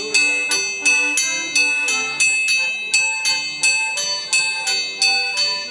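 Anvil struck with two hammers in a steady beat, about three ringing strikes a second, each bright metallic ring dying away before the next. An accordion plays a tune underneath.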